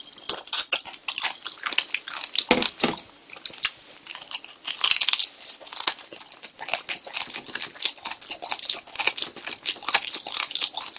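Chewing and crunching spicy chicken: a steady run of quick crackles and clicks from the mouth, with one heavier crunch about two and a half seconds in.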